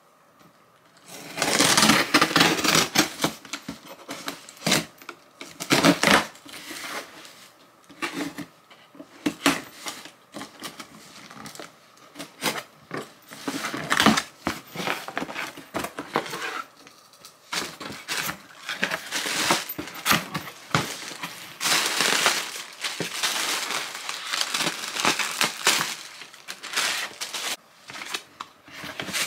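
A cardboard shipping box being opened and its contents unwrapped by hand: plastic and paper packaging crinkling and rustling in irregular bursts, with small knocks and clicks from handling.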